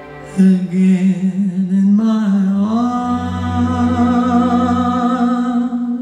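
Slow ballad music played back through hi-fi floorstanding speakers: long held notes with a gentle vibrato, the pitch moving about two seconds in and settling on a higher note shortly after.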